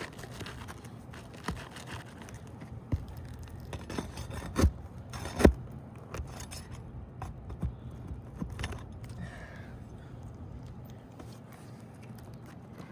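Hand work on asphalt roof shingles: scattered scrapes and light clicks, with two sharper knocks near the middle.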